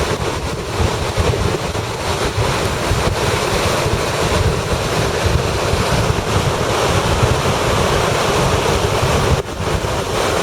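Lake Superior storm waves breaking and surging under strong wind, with the wind buffeting the microphone as a heavy, continuous rumble. The wind noise drops briefly near the end.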